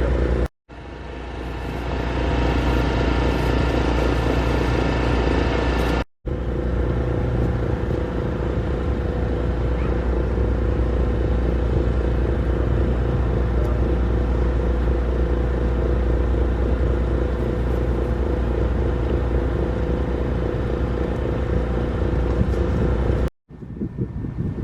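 Large engine running steadily at constant speed, a loud low drone with a steady hum above it. The sound cuts out sharply for a moment about half a second in, again about six seconds in, and near the end.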